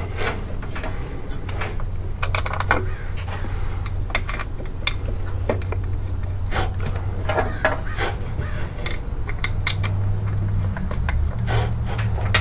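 Light metallic clicks, knocks and rubbing from a hand fitting a serpentine belt tensioner assembly onto its engine mount. A steady low hum runs underneath.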